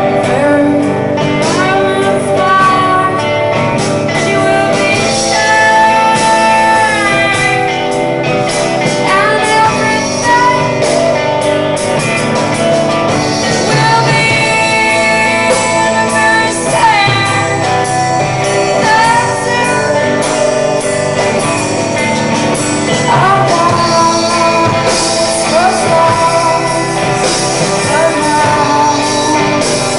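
Live rock band: a woman singing over electric guitars and drums.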